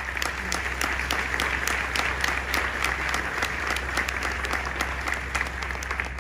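Audience applauding: a dense, steady round of many hands clapping.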